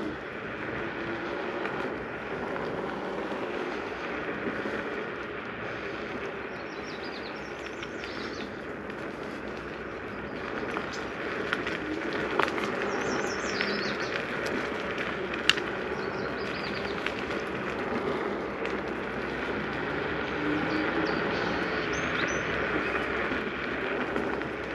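Ausom L2 Max dual-motor electric scooter ridden along a paved trail: a steady rush of tyre and wind noise, with a few faint bird chirps and a single sharp click about midway.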